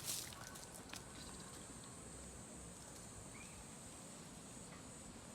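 Steady high-pitched insect buzzing in quiet woodland, with a few leaf-litter crackles in the first second and one faint short chirp about three and a half seconds in.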